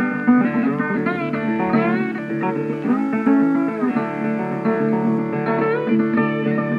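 Background music led by guitar, with plucked notes that often slide in pitch.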